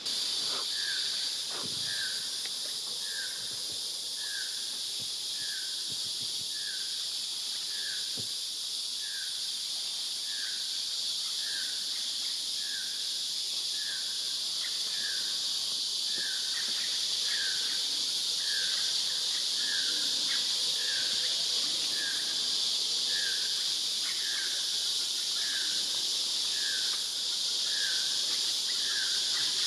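Amazon rainforest ambience: a steady, high buzzing chorus of insects, over which some animal repeats one short call about three times every two seconds.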